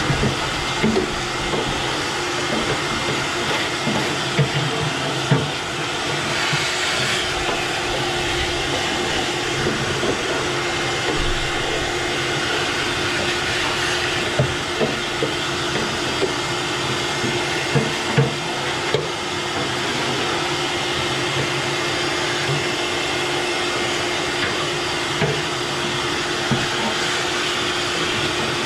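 Shop vac running steadily, its hose nozzle sucking wood-pellet ash and dust out of a pellet grill's fire pot and barrel. Irregular small knocks and rattles come through the steady rush of air.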